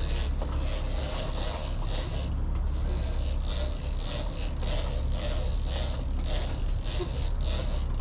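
A boat's engine running steadily as a low rumble, with water and wind noise rising and falling in quick surges over it.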